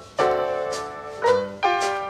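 Music: piano chords struck one after another, three in quick succession, each ringing and fading away.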